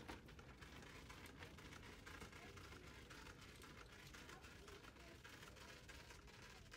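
Near silence: faint room tone with soft scattered ticks.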